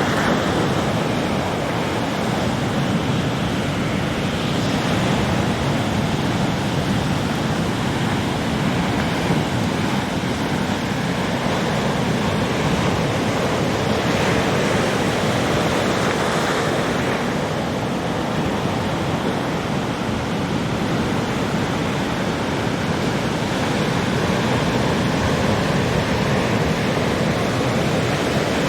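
Heavy ocean surf: big waves breaking and washing in a constant rumble, with a few brief rises in the spray hiss, and wind noise on the microphone.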